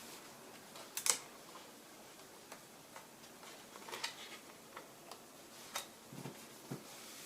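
Small parts and tools of a ThinkPad X240 laptop being handled during disassembly: scattered light clicks and taps, the loudest a double click about a second in and another cluster around four seconds.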